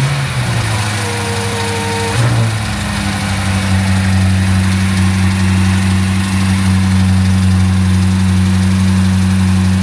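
BMW F90 M5's twin-turbo 4.4-litre V8 just fired up: a brief flare, a drop in pitch about two seconds in, then a steady idle, breathing through newly fitted aftermarket intakes with mesh aluminium filters.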